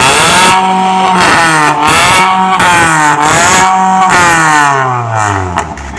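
Car engine with a modified, illegally loud exhaust being revved in repeated blips, rising and falling about once a second, then dropping back near the end.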